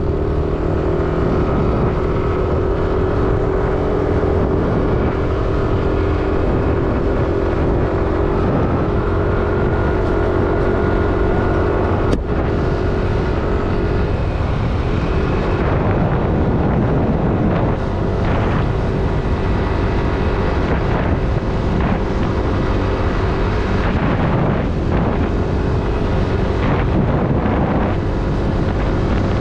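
Motor scooter engine running at a steady cruising speed, with wind on the microphone. The engine note dips briefly about halfway through, then steadies again.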